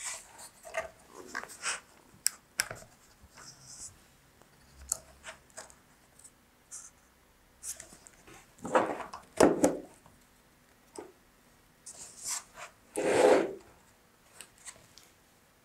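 Hands handling a corrugated cardboard model and small electronic parts: scattered light clicks and taps, with two louder scraping rubs, each about a second long, roughly nine and thirteen seconds in.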